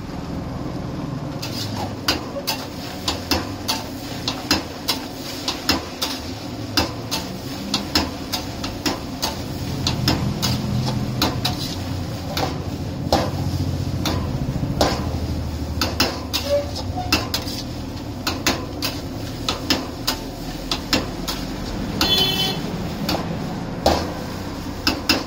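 Metal spatula clacking and scraping against a steel wok as rice is stir-fried and tossed, sharp knocks coming about twice a second over a steady low rumble of the gas burner. Near the end the spatula strikes the wok with a short metallic ring.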